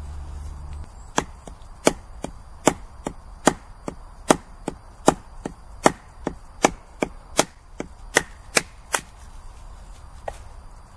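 A wooden baton striking a carved wooden wedge driven into the top of an upright log to split firewood: about twenty sharp wood-on-wood knocks, roughly two and a half a second, starting about a second in and stopping about nine seconds in.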